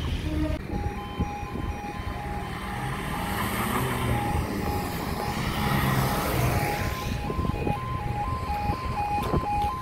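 Level crossing alarm starting to sound less than a second in, as the red warning lights begin to flash. It settles into two alternating tones, changing about twice a second. In the middle, a vehicle drives across on the wet road, with tyre hiss that swells and fades.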